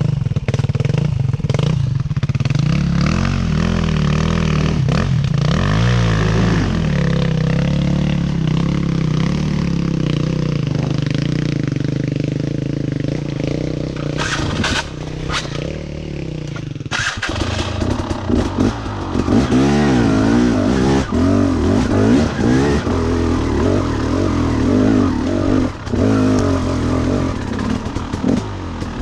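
Two-stroke dirt bike engine riding a wet, muddy trail, the revs rising and falling with the throttle. The engine note changes abruptly about halfway through and then keeps swinging up and down.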